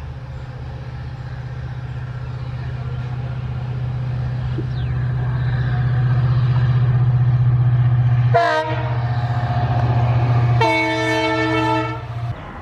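EMD WDP-4 diesel locomotive's two-stroke V16 engine working hard under load with a steady low drone that grows louder as it approaches. About eight seconds in, its horn gives a short blip, then a longer blast of a little over a second.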